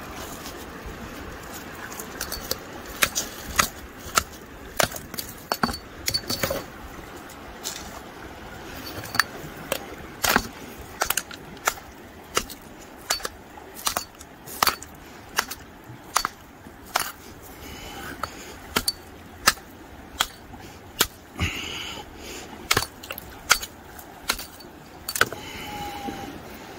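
A hammer striking rock over and over to chip a sample off a quartz vein: sharp, clinking hits at an uneven pace of about one or two a second, sparse at first, then steady from about three seconds in.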